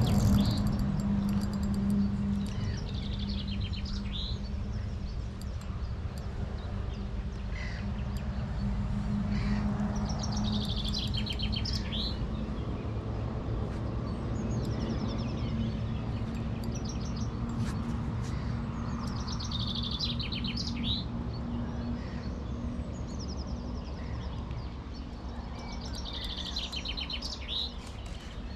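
A songbird singing short, fast trilled phrases, one every several seconds, over a steady low hum.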